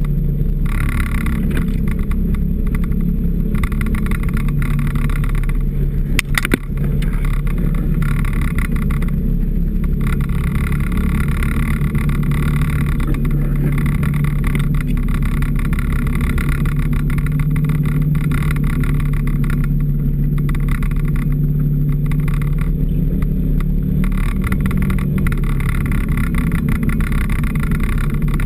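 Snowmobile engine running steadily at trail speed, with track and snow noise under it. A single brief knock about six seconds in.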